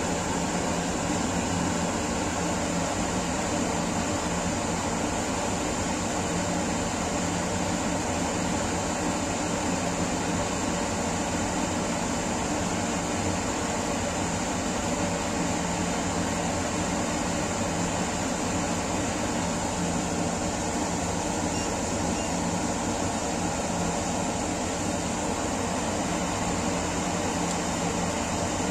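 Pot of water at a hard rolling boil with homemade boilies cooking in it: a steady, even rushing noise that does not change.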